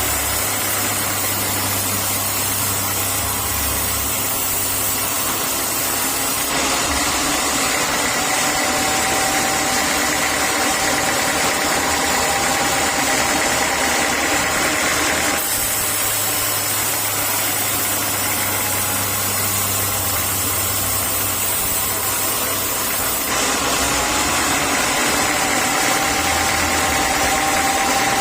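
Sawmill saw running steadily with a faint high whine over a loud mechanical din. The sound changes abruptly three times.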